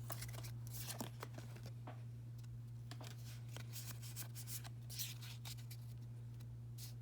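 Pokémon trading cards being handled and slid apart: faint scattered rustles and soft card flicks, over a steady low hum.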